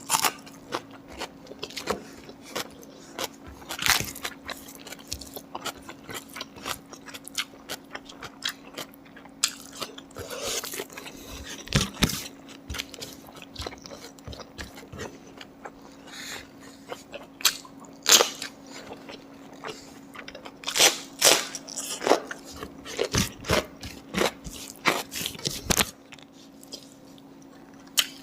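Close-up chewing and biting of pork, with irregular sharp crunches and wet mouth clicks, easing off near the end.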